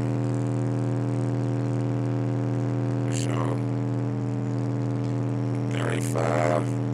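Steady 40 Hz sine test tone played through a Dual XDM17BT car stereo, heard as a constant low drone with a stack of overtones. The volume sits just below the level where the head unit's output starts to clip.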